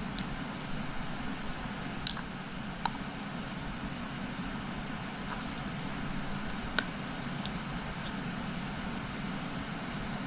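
Steady low background hum with a handful of short, sharp clicks; the loudest come about two seconds in, just under three seconds in, and near seven seconds.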